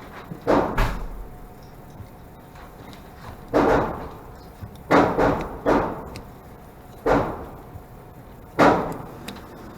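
Glock 44 .22 LR pistol being fired: about eight shots at an uneven pace, a couple close together and the rest a second or more apart, each a sharp crack with a short echoing tail.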